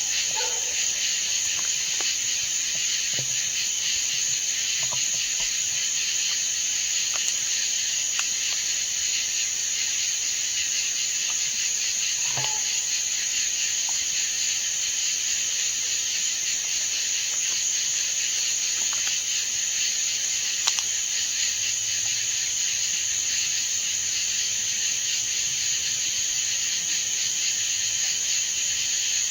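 Steady, unbroken high-pitched chorus of night insects such as crickets and katydids, with a few faint clicks and rustles over it.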